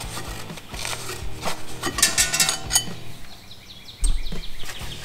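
Steel flywheel clinking and scraping against metal as it is worked loose and pulled off the crankshaft, with a cluster of sharp clinks about two seconds in and a heavier knock about four seconds in.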